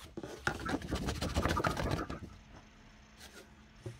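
Rapid scratchy rubbing and scraping on paper for about two seconds, then quieter, with a soft knock near the end.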